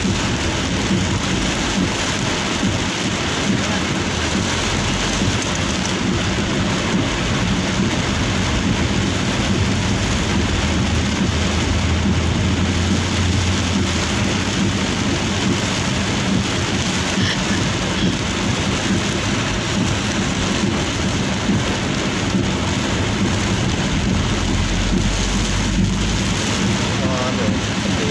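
Heavy rain on a moving vehicle's roof and windscreen, heard from inside the cab: a steady, dense hiss with a low rumble underneath.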